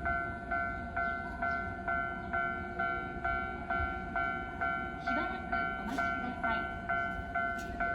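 Japanese level-crossing warning bell ringing: an even, repeated two-tone ding, a little over two strikes a second.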